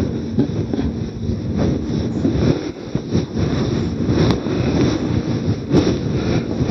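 Whiteboard eraser scrubbed back and forth across a whiteboard: a continuous rubbing made of many quick, uneven strokes.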